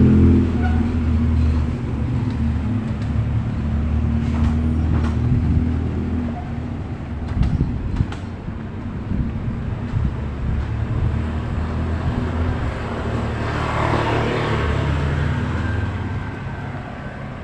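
Street traffic: a van's engine pulling away at the start, then a steady low engine rumble, with a motorcycle passing close about fourteen seconds in.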